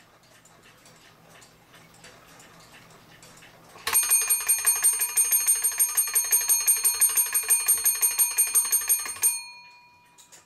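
Weight-driven alarm of an antique wood-plate wall clock going off: its hammer strikes the bell rapidly, about six strokes a second, for about five seconds, then stops suddenly and the bell rings on briefly. Faint clicks come before the alarm trips.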